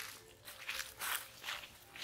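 Dry leaf litter crunching and rustling under a macaque's steps as it walks, in short bursts about twice a second.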